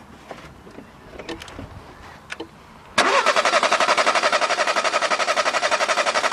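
A few light clicks, then about three seconds in a Citroën car engine's starter motor suddenly starts cranking the engine over at a fast, even pulse without it firing, spark plugs out for a compression test with a gauge in one cylinder.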